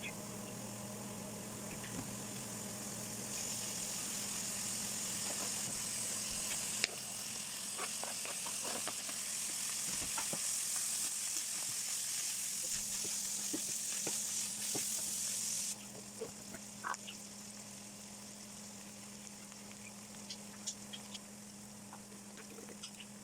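Food frying in hot oil in a pan: a steady sizzle with scattered crackles and pops that drops off suddenly about two-thirds through. A steady low hum runs underneath.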